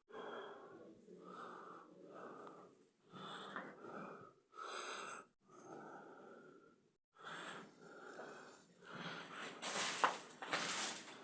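A person breathing heavily close to the microphone, a series of audible breaths with short pauses between. In the last couple of seconds, louder rustling with sharp clicks and knocks joins in.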